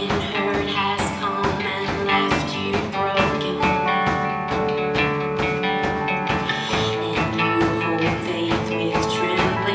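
Instrumental introduction of a contemporary Christian rock ballad: sustained chords and melody over a steady beat, before the vocals come in.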